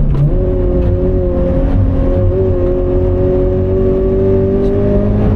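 Toyota 86 GRMN's flat-four engine pulling hard under full throttle, heard from inside the cabin. Right at the start there is a gear change, and then the engine note climbs slowly and steadily as the car gathers speed.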